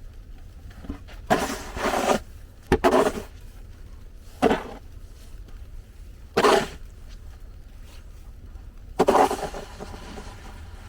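Five short, separate scraping noises over a steady low rumble.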